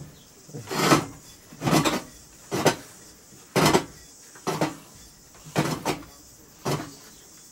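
Bare Ford flathead V8 block, heads off, being turned over by hand: about eight short mechanical rasps, roughly one a second, as the crank turns and the pistons move in their bores.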